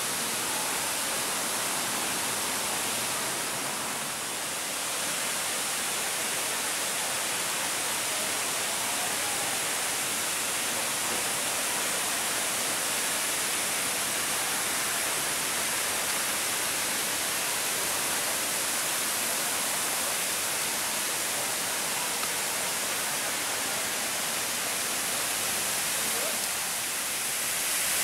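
Steady rushing hiss of water spray from a large dandelion-shaped fountain, the El Alamein Memorial Fountain, growing a little louder near the end.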